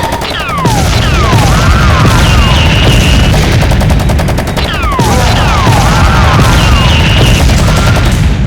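Rapid automatic gunfire sound effect over a heavy rumble, with falling and arching whistling sweeps laid on top. The same pattern plays twice, about five seconds apart, as a looped effect track would.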